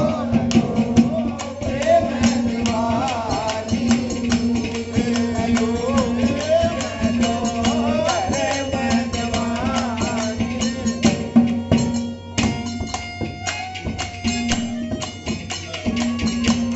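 Harmonium playing held notes with a fast, steady hand-percussion beat, accompanying a singer's wavering folk melody. The voice stops about two-thirds of the way through, leaving the harmonium and percussion.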